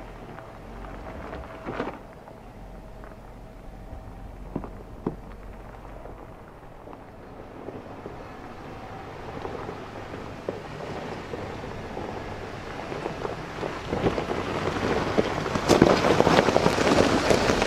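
Jeep Wrangler Unlimited Rubicon driving slowly over loose gravel, its tyres crunching and popping stones with its engine running underneath. It grows louder over the last several seconds as it comes up and passes close by.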